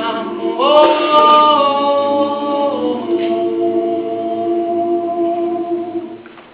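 A group of voices singing a cappella, holding a closing chord that shifts twice and then fades out near the end.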